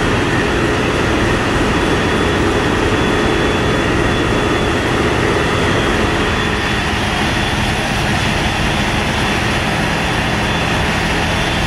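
Ship's diesel engines running steadily under way: a loud, even drone with a low hum and a thin high whine over it, the midrange easing a little about halfway through.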